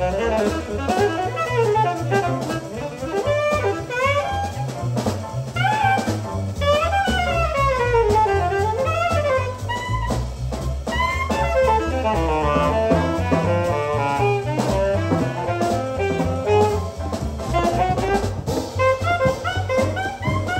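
Live jazz quartet: a saxophone plays fast melodic runs that sweep up and down, over double bass, drum kit and piano.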